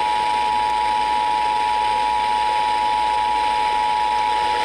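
Emergency Alert System attention signal: the steady two-tone alarm (853 and 960 Hz together) that announces an emergency warning, here for a severe thunderstorm warning, heard over a hissy broadcast and cutting off just before the end.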